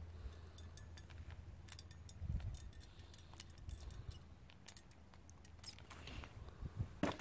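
Faint scattered clicks and creaks of a handheld crimping tool closing on a metal connector contact on 10-gauge solar cable, with a few sharper clicks near the end.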